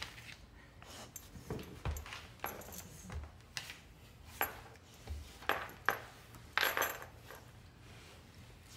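A Rottweiler's claws clicking on a hardwood floor and its metal collar clinking as it paws and noses about. About ten scattered sharp clicks, the loudest around six to seven seconds in.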